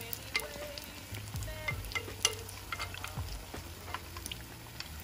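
Pancake-battered Oreos deep-frying in hot oil: a steady sizzle with many sharp crackling pops. A slotted metal spoon stirs them in the pot.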